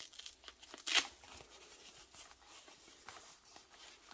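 Hands tearing open a sticker-sealed sleeve of soft foam packing wrap. There is one sharp rip about a second in, then quieter rustling and crinkling of the foam.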